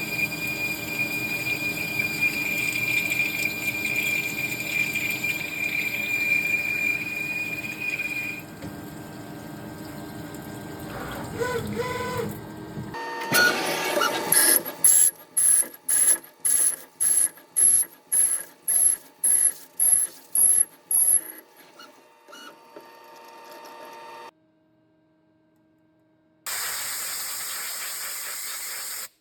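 АРС 300T machine tool running: a steady high whine over the motor at first, then a rough mechanical stretch. About halfway in comes a run of sharp, regular clicking strokes, about two a second for some seven seconds. The machine then stops, and a short burst of hiss follows near the end.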